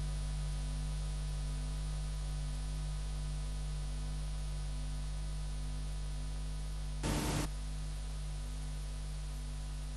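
Steady electrical hum and hiss with no programme sound, with a brief burst of static about seven seconds in.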